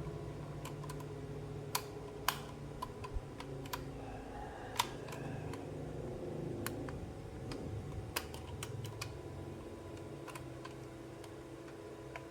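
Irregular light clicks and taps of small plastic toy pieces being handled, over a steady low hum.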